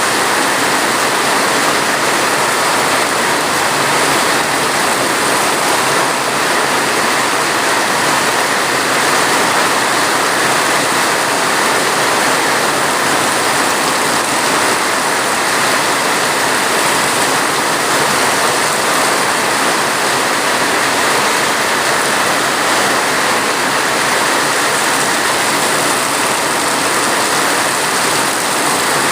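Heavy rain falling in a steady, even hiss, with no separate drops or thunder standing out.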